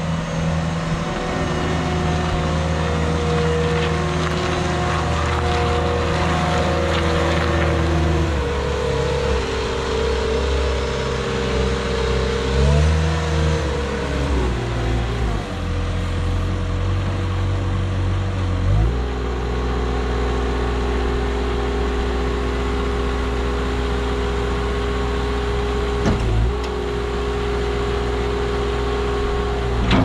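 Caterpillar 242B skid-steer loader's diesel engine running steadily as the machine drives and turns. Its pitch shifts several times, with a brief rise and fall about halfway through, and it settles at a new steady pitch about two-thirds of the way in. A short knock comes near the end.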